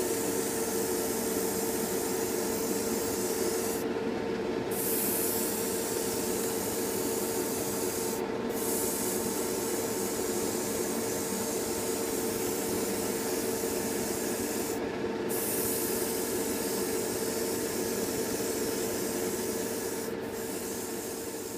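Siphon-feed airbrush hissing as it sprays paint, with the hiss cutting out briefly four times as the trigger is let off, over the steady hum of the running spray booth and air compressor.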